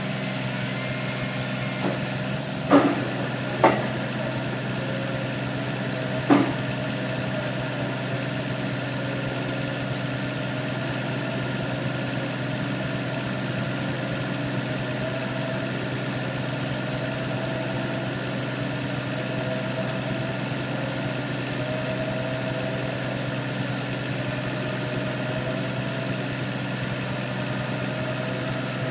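Diesel engine of a Tescar CF3 mini piling rig running steadily at a constant pitch, with a faint wavering whine above it. Three sharp knocks come within the first seven seconds.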